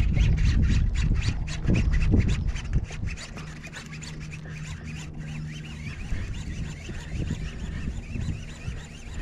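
Fishing reel clicking in a quick, even run while a hooked bass is played from a kayak, fading out about five seconds in. Wind rumbles on the microphone for the first few seconds.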